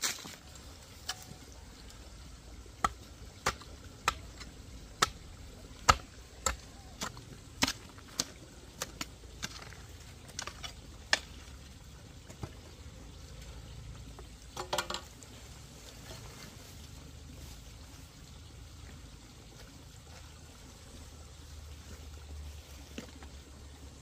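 Hand hoe chopping into hard, stony soil while digging a trench: a string of sharp strikes, about one or two a second, through the first half, and a short cluster of scraping hits near the middle. The second half is quieter, with only an even faint hiss.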